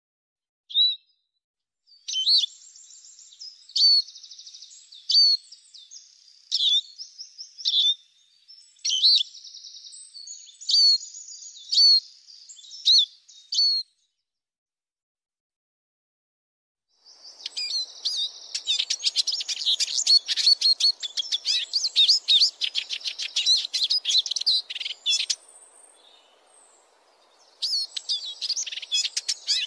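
Eurasian siskin singing: sharp high calls about a second apart with buzzy twittering between them, then, after a pause of a few seconds, a fast continuous twittering song.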